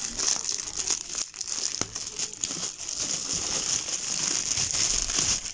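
Thin clear plastic packaging bag crinkling and rustling continuously as hands work an item out of it.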